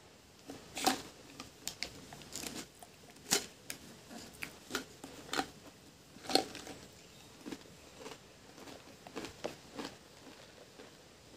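Pringles potato crisps crunching as they are bitten and chewed: an irregular run of sharp, crisp crunches, the loudest about one, three and six seconds in.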